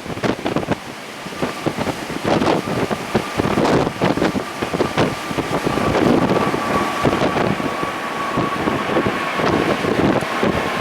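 Strong typhoon wind gusting against the microphone. From about a second and a half in, a faint steady high whine that drifts slightly lower comes through it: the engines of an approaching jet airliner.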